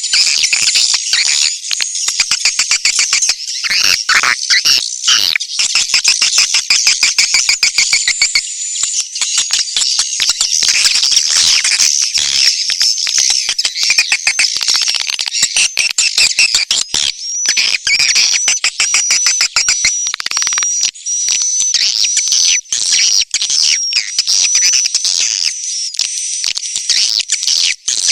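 Edible-nest swiftlets calling in a dense, continuous chatter of rapid high chirps and clicking trills, a high trilling note running through the second half. This is the kind of swiftlet call track that farmers play to lure the birds into swiftlet houses.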